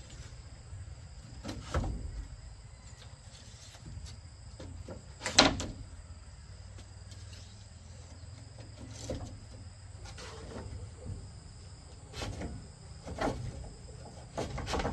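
Irregular knocks and scrapes of bamboo poles being handled in building work, about seven in all, the loudest about five seconds in.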